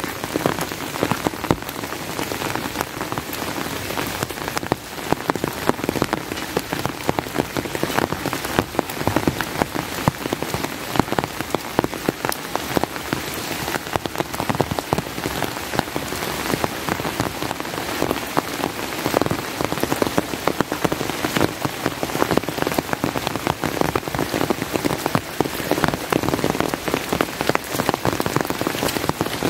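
Steady heavy rain, a dense patter of close drop hits over a constant hiss.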